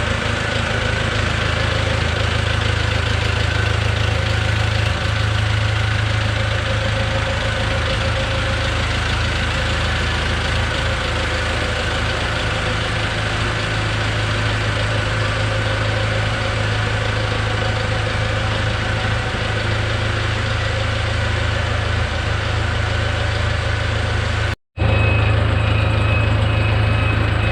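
Four-cylinder diesel engine of an all-terrain forklift idling steadily. Near the end the sound cuts out briefly and the idle resumes with a faint, thin steady tone added.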